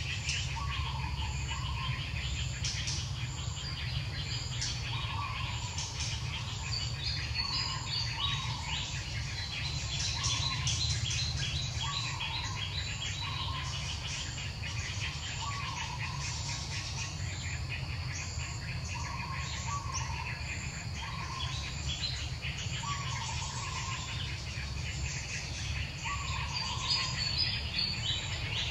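Outdoor woodland ambience: a bird repeats a short two-note call about every one and a half to two seconds over dense high chirping of birds and insects, with a steady low rumble underneath.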